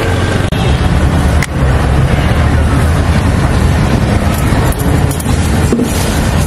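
Steady street traffic noise, with passing vehicles making a loud, constant low drone.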